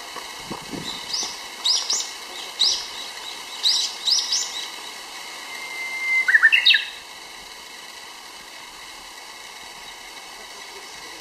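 Japanese bush warbler (uguisu) singing its hō-hokekyo song once, about six seconds in: a held whistle, then a quick run of rising notes, the loudest sound here. Before it comes a string of short, high, rising chirps.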